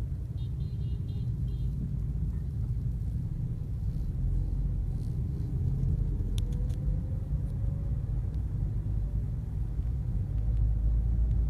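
Low rumble of engine and road noise inside a car's cabin moving slowly in city traffic. A short, rapidly pulsing high beep sounds about half a second in, and a few sharp clicks come around the middle.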